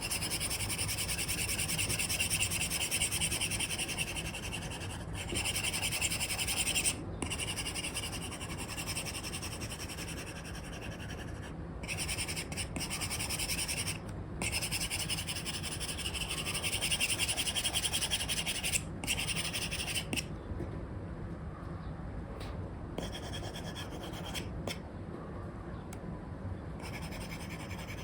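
Apple Pencil tip scratching across a paper-like screen film on an iPad as strokes are drawn, in long runs broken by brief pauses where the pencil lifts. The strokes turn lighter and sparser after about twenty seconds.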